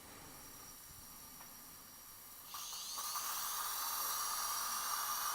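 Surgical implant drill handpiece with a 2 mm twist drill, preparing the implant bed in bone. A faint hiss gives way, about two and a half seconds in, to the drill starting up with a steady high whine.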